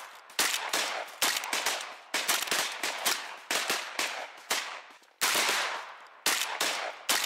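Shotguns firing at geese overhead: a rapid series of about nine sharp reports, each trailing off briefly.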